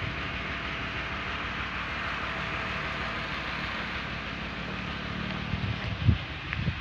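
An engine running steadily at idle, a low even hum with hiss over it. A couple of short knocks come about six seconds in.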